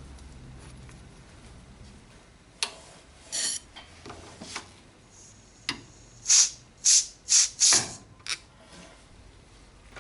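Short blasts of compressed air from a blow gun into a brake caliper's fluid feed hole to force the piston out. One hiss comes about three and a half seconds in, then four quick hisses in a row, with a few sharp clicks and knocks between them.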